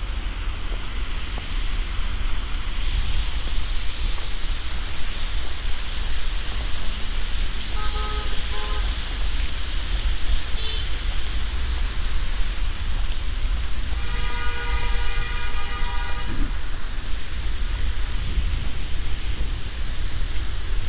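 Steady city street noise with a heavy low rumble, typical of wind on the microphone and traffic in a snowstorm. A short horn toot sounds about eight seconds in, and a longer, steady horn blast comes about six seconds later.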